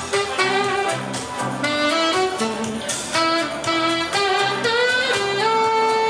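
Background jazz music, with a saxophone-like lead playing a melodic line of held notes over a bass line.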